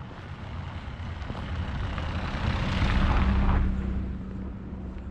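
A vehicle passing by: a low engine hum and rushing noise swell to a peak about three seconds in, then fade away.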